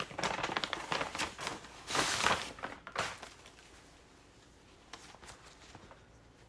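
Paper bag packaging crinkling and rustling as it is handled and opened, loudest about two seconds in, then dying down to a few small rustles after about three seconds.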